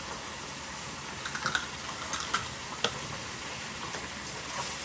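Pan of smothered potatoes sizzling steadily after water has been added, with a few light clicks scattered through.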